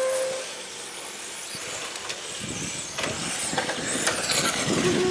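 Electric radio-controlled racing cars running on an asphalt track: a steady motor whine cuts off about half a second in, then the noise of cars passing builds up again in the second half.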